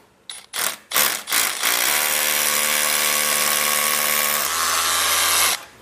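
SDS rotary hammer drill boring into cinder block: a few short trigger blips, then about four seconds of steady drilling that cuts off just before the end.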